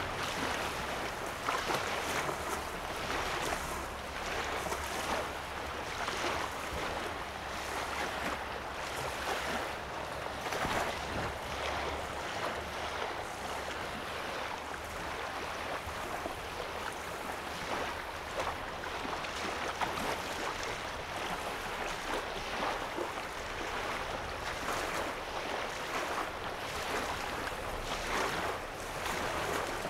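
Small lake waves lapping against a sandy shoreline: a continuous wash of water broken by frequent small splashes.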